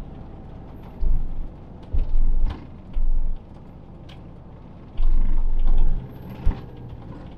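Motorhome heard from inside the cab while driving slowly: a low engine and road rumble, with several heavier low surges of rumble lasting up to about a second and one short sharp knock near the end.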